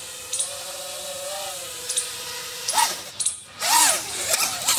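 Motors and propellers of a home-built FPV quadcopter whining steadily, then rising and falling in pitch twice as the throttle is blipped.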